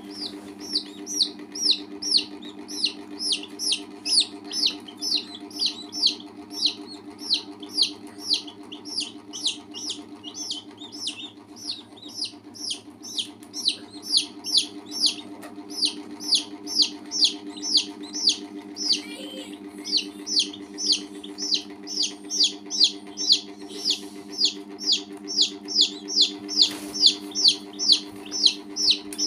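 Newly hatched chicks peeping steadily, short high-pitched peeps that fall in pitch, about two to three a second, with a brief pause about two-thirds of the way through.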